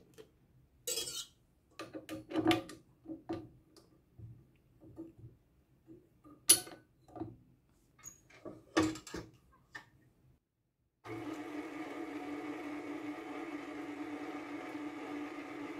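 Scattered clicks and knocks of a spatula and whisk against a stainless steel mixing bowl, with one sharp click about six and a half seconds in. About eleven seconds in, a KitchenAid tilt-head stand mixer's motor starts and runs with a steady hum as its wire whisk beats eggs and condensed milk.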